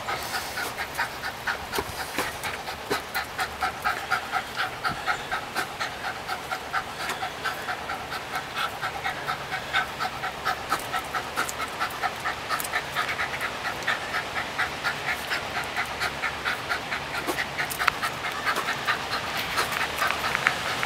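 A small terrier panting hard and fast, with an even rhythm of about three breaths a second.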